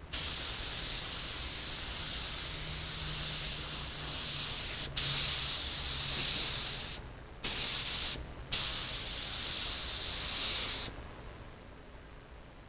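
Paint being sprayed: a loud, high hiss in four long passes with brief breaks between them, stopping suddenly near the end.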